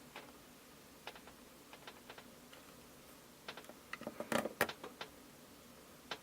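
Faint light clicks and taps of plastic Play-Doh toy parts being handled, with a quick flurry of louder clicks about four seconds in.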